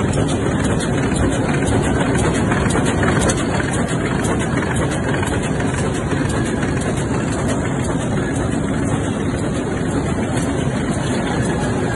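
EMBA 244 corrugated-board casemaker (flexo folder-gluer with three print units and a rotary die-cutter) running in production: a steady, unbroken industrial machine din.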